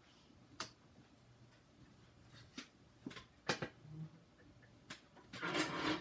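Vintage Encon ceiling fan running with a faint low hum and scattered ticks, about five sharp clicks at uneven intervals. A louder rustling noise comes near the end.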